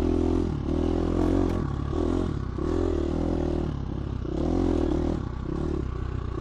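GasGas 350 four-stroke dirt bike engine under riding load, the throttle opened and closed in short irregular bursts about once a second.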